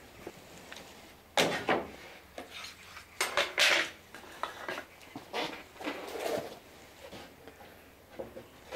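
Metallic clinks and clatter of tools being handled and set down, with a sharp knock about a second and a half in and a cluster of clanks about three to four seconds in.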